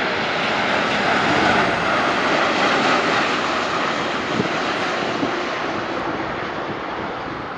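Airbus A340 four-engine jetliner on approach to land, passing overhead: a steady jet roar that slowly fades toward the end.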